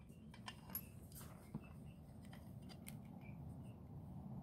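Faint handling noise: a few light clicks and rustling as insulated wires are handled and fed into the jaws of an automatic wire stripper.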